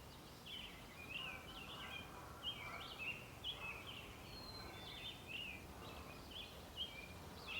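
Songbirds singing outdoors: a continuous run of quick chirps and warbled phrases, high-pitched, over a faint background hiss.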